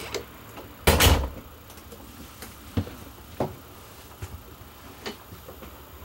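A camper's interior door knocking shut with a loud thud about a second in, followed by a few faint clicks.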